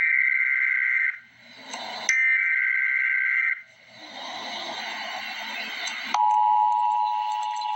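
Emergency Alert System header data bursts sound twice, each about a second and a half long. A couple of seconds of hiss follow. About six seconds in, the EAS two-tone attention signal begins: a steady pair of tones sounding together, announcing the warning that follows.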